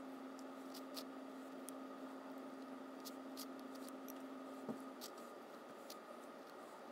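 Faint steady low hum that stops about five seconds in, with a few light, short clicks.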